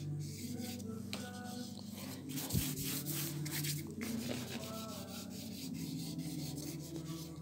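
A black crayon scratching and rubbing across the painted paper in rapid, irregular scribbled strokes, with a low steady hum underneath.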